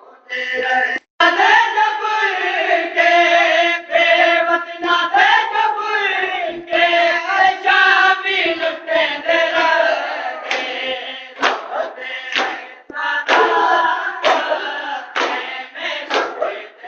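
Men loudly chanting a noha, a Muharram lament, led by a strong singing voice. From about ten seconds in, rhythmic matam slaps of hands on chests come in at roughly one a second.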